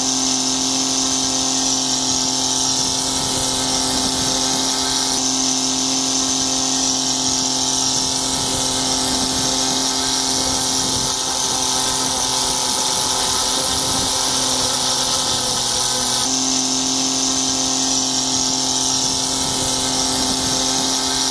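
Saito FG-90R3 three-cylinder gasoline radial engine running steadily at high throttle with its propeller turning, on its first run-up.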